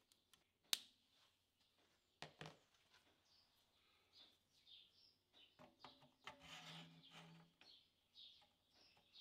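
Near silence: faint room tone with soft bird chirps in the background. A single sharp click comes just under a second in, and a few quiet knocks and rubs follow as parts are handled.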